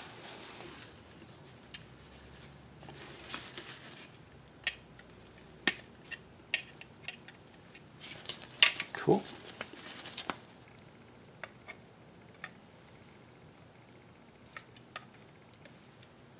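Scattered light metallic clicks and clinks of a steel rear drum brake shoe and its parking brake lever being handled and fitted together by hand, with the sharpest clink a little past halfway.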